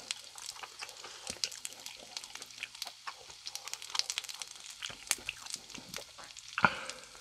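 Chicken skewers sizzling and crackling as they grill, a dense run of irregular pops and crackles, with one louder knock near the end.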